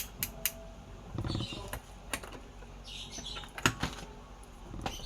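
Sharp plastic clicks and rustling as a Transformers toy is handled, the clicks coming irregularly, some a fraction of a second apart and others a second or more.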